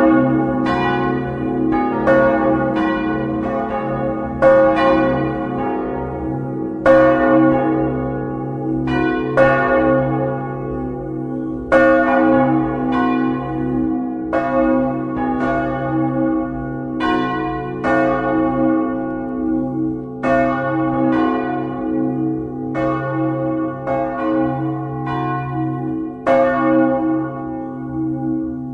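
Church bells swung full-circle in the tower, close inside the belfry. The bells of a four-bell Westminster-chord ring, the largest a 1906 C♯ bell, strike irregularly about once a second. The strokes overlap and each rings on, over a steady low hum.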